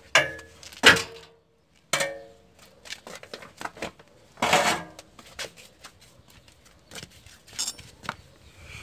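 Irregular clinks, knocks and clatter of metal parts and tools being handled, with a few louder knocks that ring briefly; no engine running.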